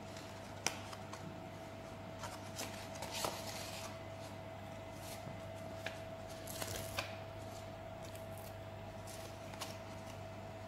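Cardboard and paper being handled: scattered rustles, crinkles and sharp clicks as a cardboard cockroach glue trap is folded into shape and its backing paper pulled off the glue sheet. A sharp click comes about a second in, and the loudest rustle comes a little past the middle, over a steady faint hum.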